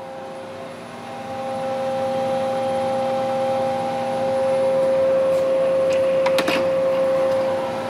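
Ganesh CTL-618EVS precision lathe running at 165 RPM with the threading feed engaged: a steady whine that grows louder about a second in. A few light clicks come about six and a half seconds in.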